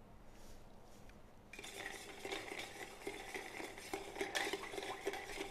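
Ice being stirred in a glass mixing glass of vermouth, the cubes clinking and rattling against the glass as the drink is chilled and diluted. Faint for the first second and a half, then steady quick clinking.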